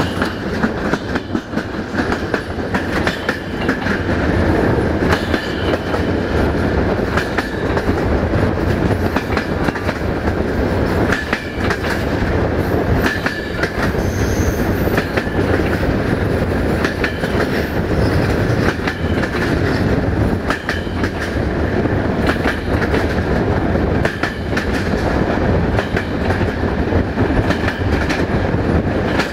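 Passenger coach wheels running on the rails at speed, heard from an open coach window: a steady rumble broken by irregular clicks and clacks over the rail joints, with a thin steady high tone running underneath.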